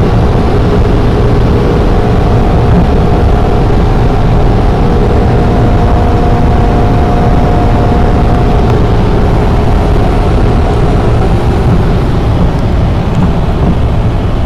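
Maserati cruising at about 300 km/h in sixth gear, heard from inside the cabin: a loud, steady engine drone with a constant whine, under heavy wind and tyre roar.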